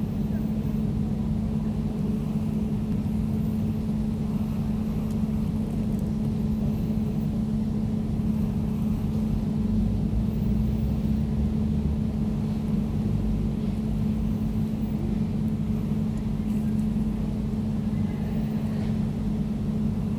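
Air conditioner running steadily, a constant hum over a low rumble and a faint airy hiss.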